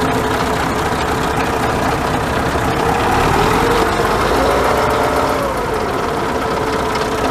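Scania 143M's V8 diesel engine idling just after start-up, with its characteristic clatter. About three seconds in, the engine note rises and falls back once over a couple of seconds, as in a brief rev.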